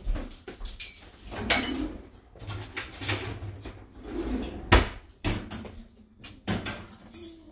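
Kitchen drawer being opened and cutlery clattering as a fork is fetched: a string of knocks and clinks, with one sharp thump a little before five seconds in.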